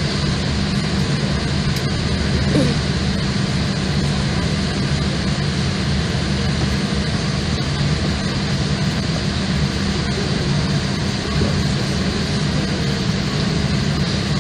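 Steady cabin noise inside a Boeing 787-8 Dreamliner taxiing after landing: a constant low hum with an even hiss over it, from the engines running at low power and the airflow in the cabin.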